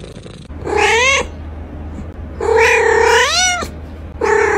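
Tabby cat meowing three times: a short rising meow, a longer drawn-out meow that lifts in pitch at its end, and a brief third meow.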